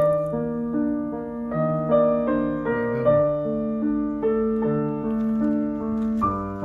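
Background music: a piano playing a gentle melody with arpeggiated chords, notes changing about every half second.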